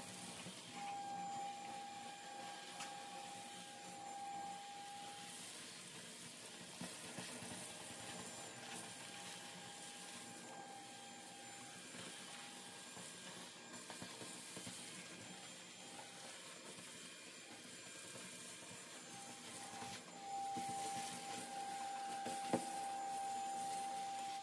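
Milwaukee shop vacuum running, its hose sucking loose soot and rust debris off the bottom of a boiler's fire-side: a steady rushing hiss with a whine that fades in and out. It gets louder about 20 seconds in, with one sharp click shortly after.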